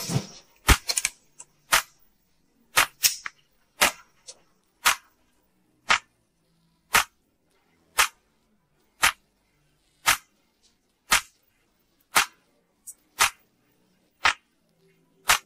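Single sharp clicks at a steady pace of about one a second, like the tick of a clock, with a few quicker clicks in the first two seconds.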